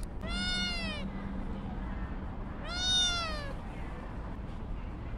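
Calico kitten meowing twice, high-pitched calls that rise briefly and then fall in pitch; the second, a couple of seconds later, is a little longer and louder.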